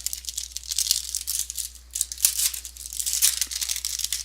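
Crackly crinkling and tearing of a trading-card pack's foil wrapper being handled and ripped open, a dense run of small crackles that stops abruptly at the end.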